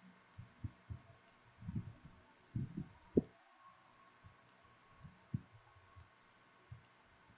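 Faint computer mouse clicks, about six scattered ones, among soft irregular low thumps, the strongest about three seconds in.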